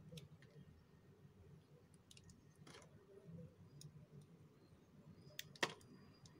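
Faint crackles and clicks of a brittle coating being picked and peeled off a bar of soap by hand, a handful of scattered snaps with a sharper crack about five and a half seconds in.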